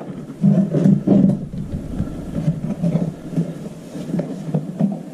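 Plastic scooter body parts being handled and fitted during reassembly: irregular rubbing and knocking, with a few short knocks.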